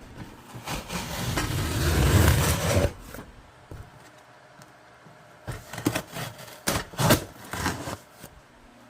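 A shipping package being torn open: a rough ripping noise that builds for about three seconds and stops, then, after a pause, a few seconds of crinkling and rustling as the packaging is handled.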